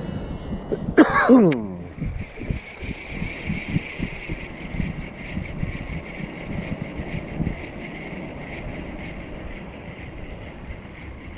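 Baitcasting reel's spool whining on a cast about a second in, the pitch falling fast as the spool slows. Then steady wind noise on the microphone.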